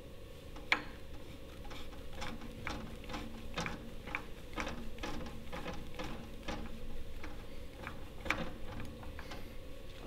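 Stem cover tube of a Schiebel CM03 multi-turn actuator being screwed by hand into the handwheel: a steady run of light clicks, about two or three a second, the loudest less than a second in.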